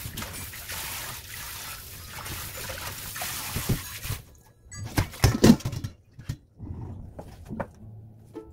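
Kitchen tap water running and splashing into a stainless steel sink and colander as garlic chives are rinsed. The water stops about four seconds in, and a few sharp metal clatters follow as the colander and bowl are handled.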